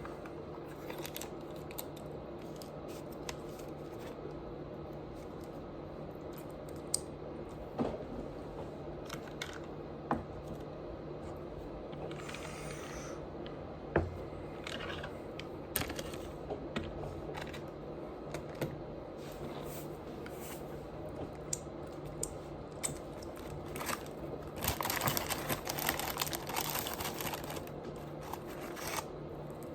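Close-miked eating and food handling: scattered small clicks and crunches, with a denser stretch of rustling and crackling wrapper sounds near the end, over a steady low hum.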